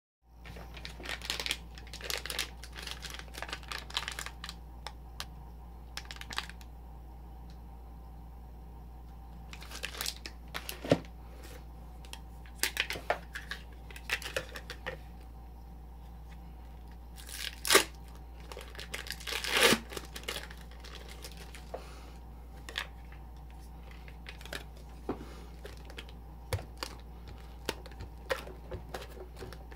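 Plastic spatulas scraping and tapping on the chilled metal plate of a cold-plate (rolled) ice cream maker, in irregular strokes as a frozen layer is scraped up, with two louder scrapes about 18 and 20 seconds in. A steady low hum runs underneath.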